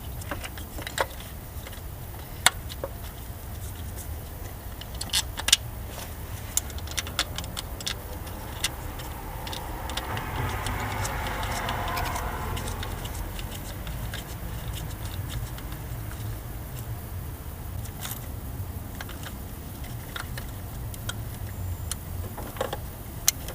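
Scattered metallic clicks and clinks of a socket wrench and spark plug socket as a spark plug is worked into the engine's cylinder head, over a steady low rumble. A noise swells and fades about halfway through.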